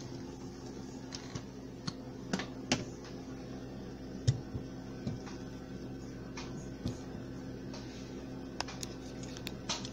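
Scattered light clicks and knocks of a plastic food processor bowl and blade assembly being handled, the loudest a knock about four seconds in, over a faint steady low hum.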